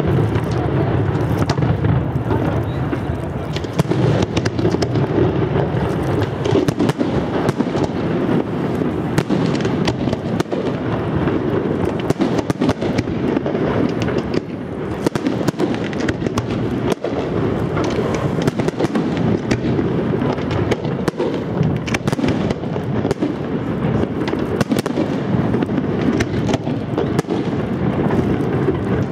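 Fireworks display in full barrage: a dense, continuous stream of bangs and crackling over a steady low rumble, with no pause.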